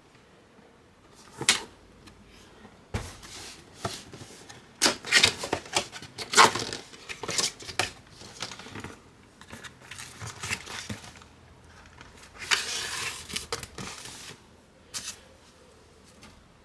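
Irregular clicks, taps and knocks of computer parts being handled and fitted together, with a stretch of rustling about three-quarters of the way through.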